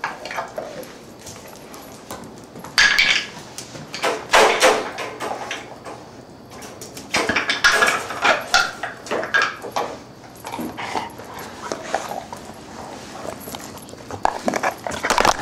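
German Shorthaired Pointer playing with a hard hoof chew: four bursts of clattering knocks and scuffles, with quieter stretches between.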